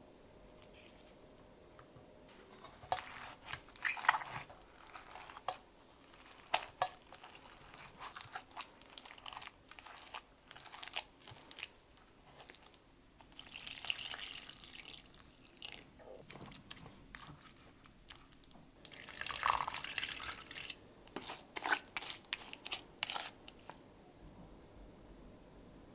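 Wooden spoon mashing soft-cooked jujubes against a stainless steel mesh strainer: irregular wet squishes, clicks and scrapes, with two longer stretches of scraping partway through.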